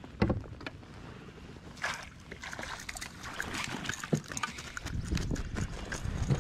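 Water splashing and dripping as a bass is lifted from the lake in a landing net beside a kayak, with scattered sharp knocks and taps. A low wind rumble on the microphone builds near the end.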